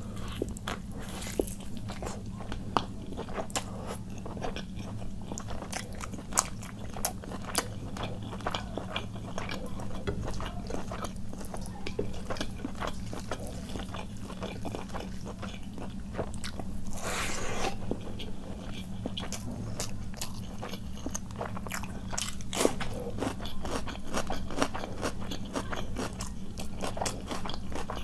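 Close-miked eating: a chicken leg in curry bitten and chewed, with wet chewing clicks and the hand squishing khichuri rice and curry on the plate, over a steady low hum.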